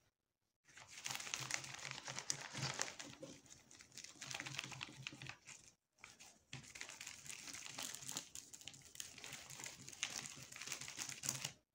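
A cloth wiping marker writing off a board covered with a clear plastic sheet: continuous scrubbing and rubbing of cloth over the plastic, starting about a second in, with a brief pause about six seconds in.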